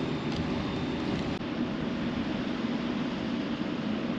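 Steady rushing noise of wind and a large wind turbine turning close overhead.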